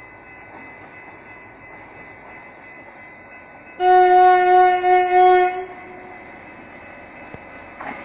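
Air horn of an approaching GM G22 diesel locomotive sounding one blast of about two seconds, a little under four seconds in, over a faint steady noise from the train.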